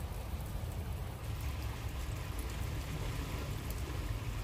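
Steady rain falling, an even hiss over a low, constant rumble.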